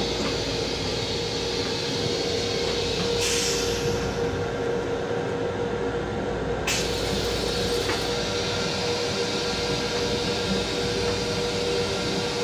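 Steady running noise of a Metro-North M7 electric railcar heard from inside its small restroom, with a constant hum under it. The hiss at the top of the noise steps up abruptly about three seconds in and drops away about seven seconds in.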